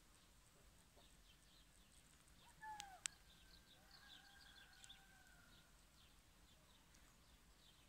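Quiet outdoor ambience with small birds chirping faintly in the distance. About two and a half seconds in, a distant drawn-out animal call starts with a quick falling note and then holds for about three seconds, and a single sharp click sounds about three seconds in.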